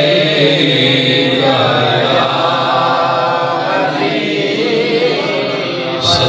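Congregation of men chanting the salawat (durood) together, many voices reciting in unison.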